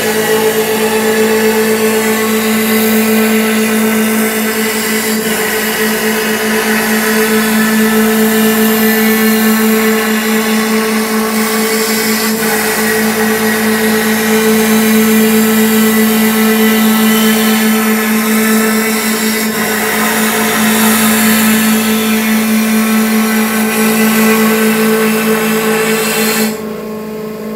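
CNC milling machine roughing a mahogany pattern with a 3/4-inch carbide end mill at about 3,300 RPM: a steady spindle whine under a loud hiss of wood being cut into chips. Near the end the cutting hiss stops suddenly, leaving the machine's hum.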